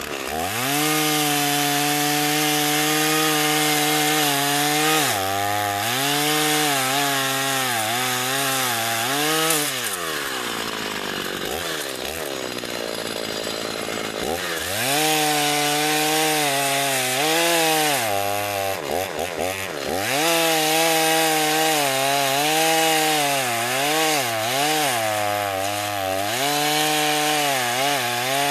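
1987 Husqvarna 50 Special two-stroke chainsaw at full throttle, cutting into a tree trunk, its pitch wavering as the chain loads in the wood. Midway it drops back to idle for a few seconds, then revs up again with a few quick throttle blips and cuts on.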